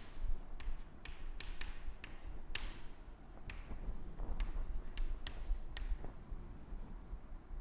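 Chalk writing on a chalkboard: irregular sharp taps as the chalk strikes the board, with short scratchy strokes between them.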